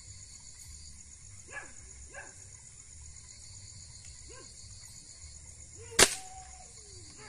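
Steady night chorus of insects with a few short yelps from a dog, then a single loud, sharp crack of a shot about six seconds in, followed by a brief falling whine.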